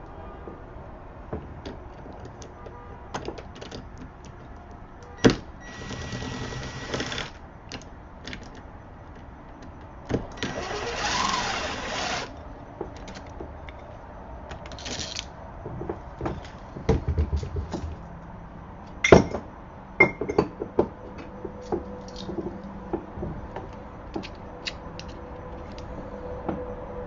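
Mounting screws being driven into a deadbolt with two short whirs of a power screwdriver, the second one longer, among scattered clicks and knocks of the metal lock parts being handled.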